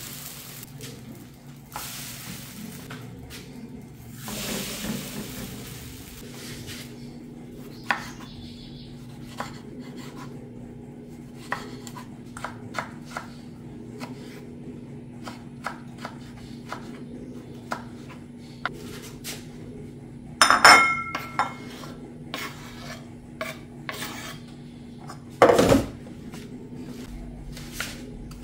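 Kitchen knife tapping on a wooden cutting board while tomatoes are diced, in short, irregular taps. In the first few seconds there is a soft hiss from a round of dough laid in a hot frying pan. About 20 seconds in a metal clink rings out, and a heavier knock comes about 25 seconds in.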